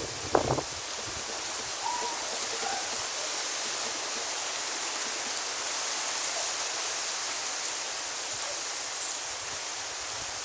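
Steady outdoor wind noise, an even hiss, with a brief louder gust in the first half second.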